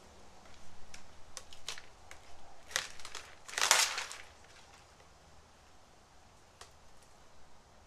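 Masking tape being peeled by hand off freshly painted car bodywork: a few short crackling rips and clicks, the loudest a half-second tear about three and a half seconds in. The tape is sealed in by the paint and clear coat between adjacent painted surfaces, so it pulls away hard.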